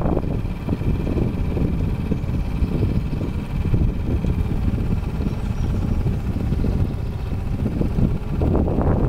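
A 4 hp Mercury outboard motor running steadily, pushing a canoe along at speed, under heavy wind buffeting on the microphone that grows stronger near the end.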